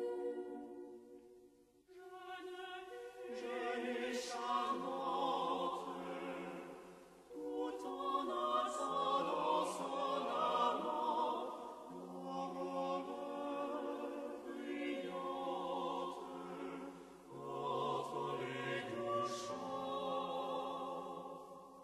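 A choir singing a traditional French folk song from the Loire region, in phrases with short breaks between them, fading out near the end.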